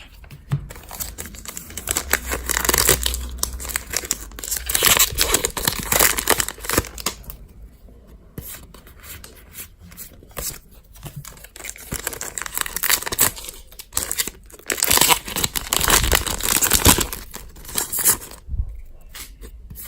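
Pokémon trading card booster packs being torn open by hand, the foil wrappers tearing and crinkling in stretches with short pauses between them.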